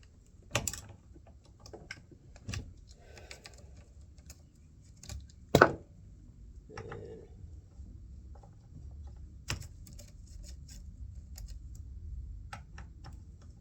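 Scattered light clicks and knocks of hand tools on a chainsaw as the bar nuts are tightened back down after setting the chain tension, with one sharper knock about five and a half seconds in.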